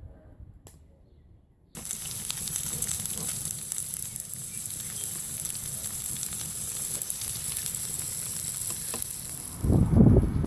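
Food sizzling and frying in a pan on a wood-fired rocket cook stove, a steady crackling hiss that cuts in abruptly about two seconds in. Near the end there is a short, louder low rumble.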